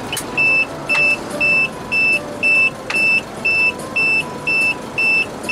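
A regular run of short, high electronic beeps, about two a second, starting about half a second in, over steady vehicle running noise. A few faint clicks fall between the first beeps.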